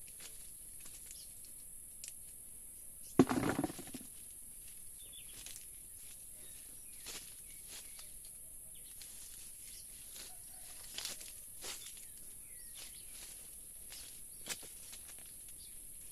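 Outdoor rural ambience: scattered small crackles and rustles, with one louder rustle about three seconds in, over a steady high-pitched hiss.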